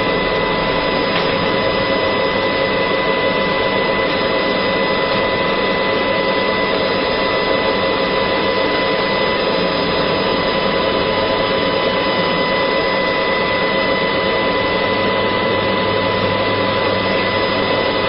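Laser marking machine running while it engraves leather: a steady rushing noise with a thin, high, unchanging whine over it.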